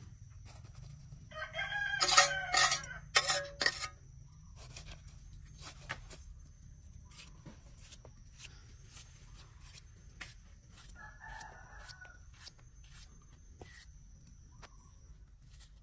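A rooster crowing once, about a second in and lasting a couple of seconds, with a fainter chicken call later on. Scattered light clicks and taps are heard throughout.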